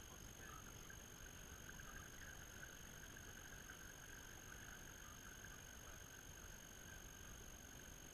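Near silence: a faint steady hiss with a faint, wavering high hum as a small catamaran driven by twin brushless electric outboard motors glides past, a little stronger while it is closest.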